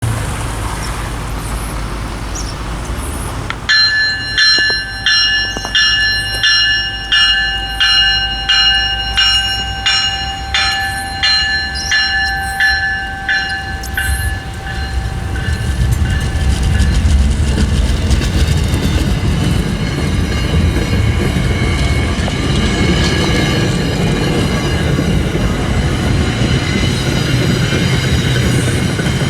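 Railroad grade-crossing bell ringing steadily, about one and a half strikes a second, stopping about 14 seconds in. Then a commuter train's rumble builds and runs on loudly as it passes.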